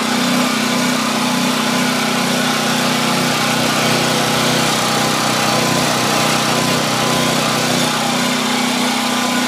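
Powermat 3,000-watt portable generator's 212 cc single-cylinder four-stroke engine running at a steady speed while it powers a halogen work light.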